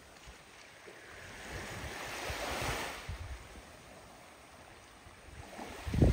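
Sea waves washing on the shore, one wash swelling and fading about two to three seconds in. Low wind buffeting on the microphone near the end.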